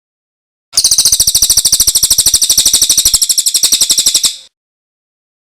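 Songbird giving one fast, high-pitched trill of evenly repeated notes, about a dozen a second, lasting about three and a half seconds and cutting off abruptly.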